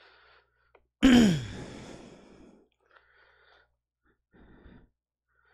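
A man's heavy sigh close to a headset microphone, about a second in: a breathy exhale whose voice falls in pitch and fades away over about a second and a half.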